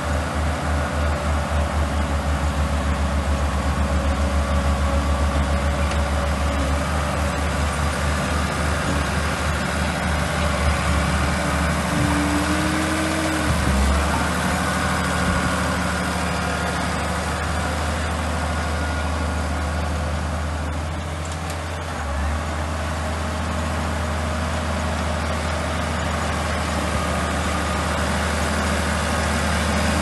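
Diesel engine of an old Komatsu crawler bulldozer running as the dozer pushes gravel and soil: a steady deep drone that throbs rhythmically for the first several seconds, then evens out. A short higher whine comes about twelve seconds in.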